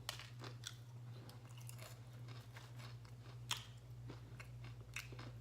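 Close-up chewing of food with mouth clicks scattered through, the sharpest about three and a half seconds in, over a steady low hum.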